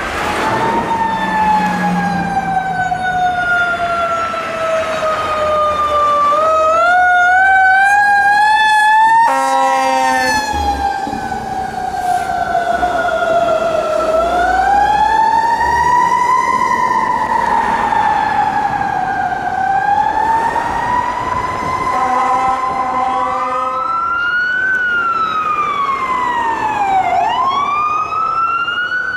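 Emergency vehicle siren wailing, rising and falling slowly, with a second siren overlapping at times. A horn blasts twice, about a third of the way in and again about three-quarters of the way through.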